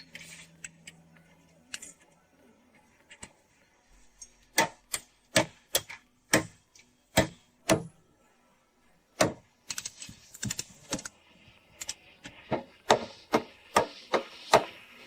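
A series of sharp taps or knocks, about two a second in the middle, then coming faster and more irregularly towards the end.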